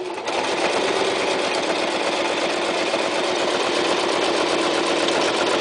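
Toyota Super Jeans J34 sewing machine running at a steady speed, stitching through a piece of soft leather almost 6 ounces thick.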